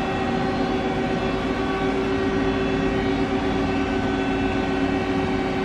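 Steady hum of powered-up machinery: a low drone with a few steady tones over it, unchanging throughout.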